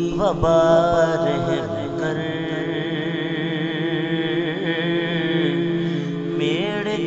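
A male naat reciter sings a Sindhi naat in long, drawn-out melismatic phrases with a wavering vibrato, over a steady drone.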